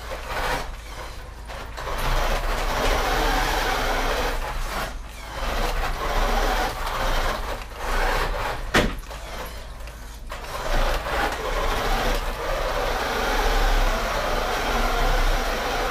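A vintage 1983 Radio Shack Tiger RC buggy running on a 2-cell LiPo in high gear: its electric motor and gears whir in repeated bursts as it accelerates, and its tyres scrub and slide on a hardwood floor. A single sharp click comes near the middle.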